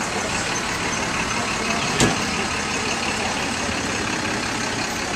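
Ferrari F40's twin-turbo V8 idling steadily, with one sharp thump about two seconds in as the car's door is shut.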